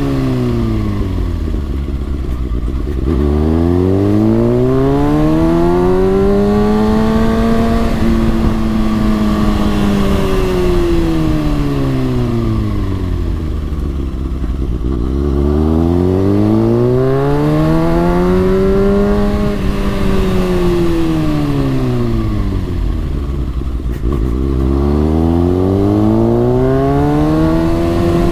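Kawasaki ZX6R 636's inline-four engine pulling in one gear, its revs rising and falling in slow smooth swells, dropping low about three seconds in, halfway and near the end, as the bike eases off for speed bumps and accelerates again between them.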